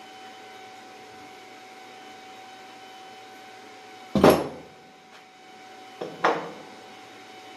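Two sharp knocks of tools or parts handled on a wooden workbench: a loud one about four seconds in and a quicker double knock about two seconds later. Under them, a steady background hum with a faint steady tone.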